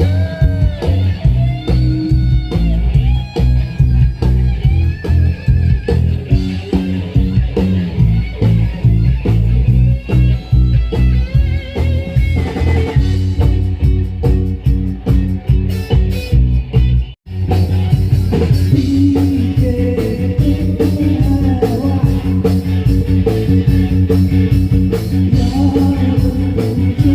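Rock band playing live: electric lead guitar with bent, gliding notes over bass guitar and a steady drum beat. The music cuts out abruptly for a moment about two-thirds of the way through, then carries on.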